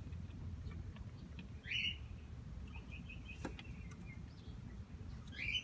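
Chickens at their feed and water bowl giving a few short, high calls: one about two seconds in, softer chirps midway, and another near the end. A single sharp click sounds about halfway through, over a steady low background noise.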